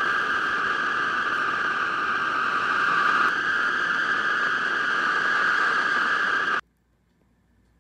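Loud, steady, high-pitched drone over hiss, a film sound effect, that cuts off suddenly near the end.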